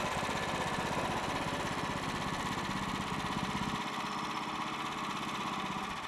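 Gasoline engine of a portable band sawmill running steadily.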